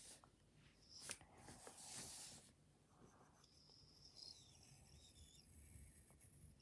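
Faint scratching of a pencil drawing lines on paper, loudest in a short stroke about two seconds in.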